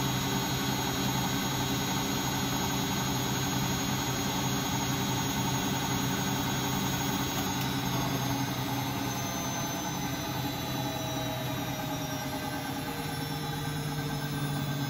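Siemens Siwamat Perfecta SL washing machine in its spin, a whining motor with several steady tones over a rushing noise. In the second half the whine falls in pitch as the drum slows down.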